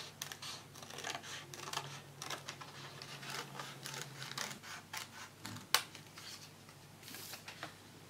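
Small scissors snipping through a sheet of wafer paper, a quick irregular run of short crisp snips as a heart shape is cut out, with one sharper click about six seconds in.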